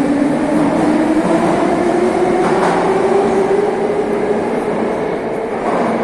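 Metro train pulling out of the station: the traction motors give a slowly rising whine over a steady rumble, with a single knock about halfway through, and the sound eases off near the end as the train leaves.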